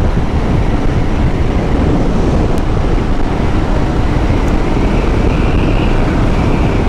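Steady wind rush on a GoPro's microphone while riding a Royal Enfield Himalayan motorcycle on the road, with engine and road noise underneath.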